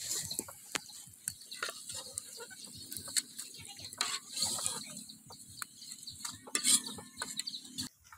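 Hot oil sizzling in a steel wok as fried scorpions and centipedes are scooped out, with a metal ladle scraping and clicking against the pan. The sound drops away near the end.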